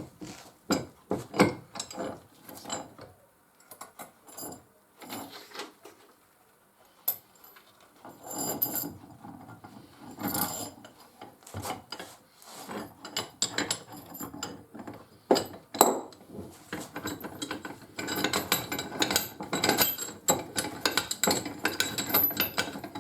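Cast-iron and steel parts of a Record No 3 bench vice clicking and clattering as it is reassembled by hand, with a quiet gap partway through. Near the end comes a denser run of rapid ratchet-like ticking as the vice's main screw is wound in.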